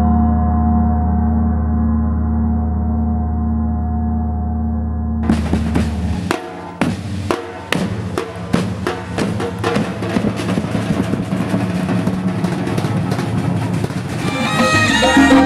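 A large hanging gong rings on with a steady, deep hum after being struck, then stops abruptly about five seconds in. A street percussion group follows, playing a fast rhythm on snare and bass drums. Near the end, music with pitched instruments joins the drumming.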